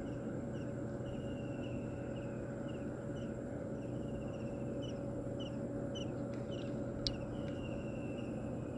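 Outdoor ambience with a small bird repeating short chirps and longer drawn-out trill notes over a steady low hum, and one sharp click about seven seconds in.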